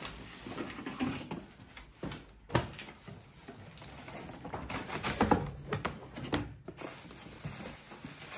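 Handling noises of a manty steamer pot being unpacked: irregular rustling with scattered knocks, the sharpest about two and a half seconds in and a cluster of them around five seconds.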